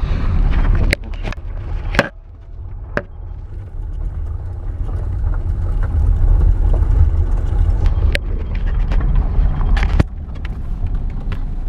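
Steady low road and engine rumble inside a Lada Granta driven over a rough road, with a few sharp knocks, three about a second apart near the start and two more later. The driver finds the steering-rack knock gone now that the steering-shaft universal joints are tightened.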